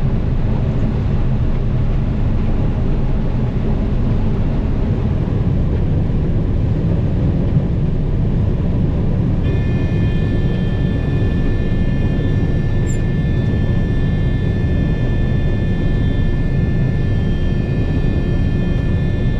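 Combine harvester running steadily, heard from inside the cab: a constant low engine rumble, joined about halfway through by a steady high whine that holds to the end.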